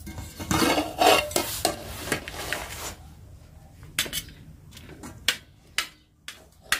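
Metal lid clattering and scraping as it comes off an aluminium rice pot. Then a steel serving spoon scooping rice and tapping against a steel plate, several sharp separate clinks.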